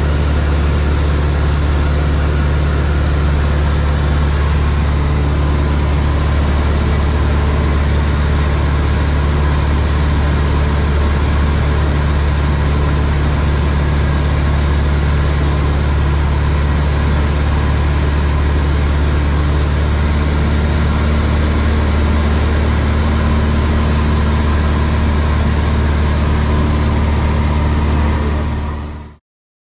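Single-engine light aircraft's piston engine and propeller running steadily in flight, heard from inside the cockpit. The sound fades out sharply near the end.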